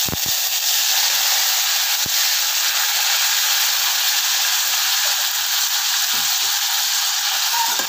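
Chopped tomatoes, shallots, green chillies and drumstick pieces sizzling in hot oil with tempered spices in a small pressure cooker pan, a loud steady hiss as they are sautéed.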